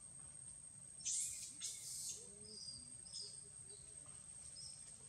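Faint outdoor ambience: a steady high insect buzz with a few short bird chirps. About a second in there are two brief, louder hissy bursts.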